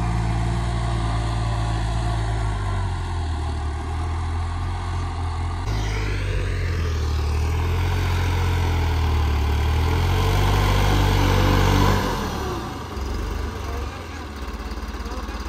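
New Holland 3630 tractor's diesel engine running steadily under load as it pulls an eleven-tine cultivator through tilled soil; it grows quieter about twelve seconds in.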